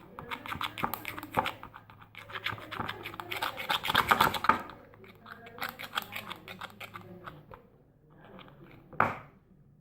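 Shampoo-and-salt slime being stirred in a small bowl: a utensil scrapes quickly and repeatedly against the bowl in fast runs of strokes, with a single sharp click near the end.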